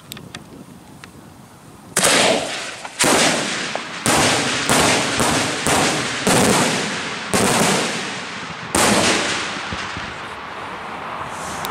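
Daytime aerial firework shells bursting overhead: about nine loud bangs in quick, uneven succession, starting about two seconds in. Each bang trails off in a rumbling echo, and lower crackling runs on after the last one.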